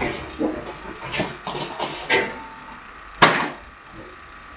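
Handling noises of a folder being moved about on a desk: scattered rustles and light knocks, with one sharp knock a little after three seconds in.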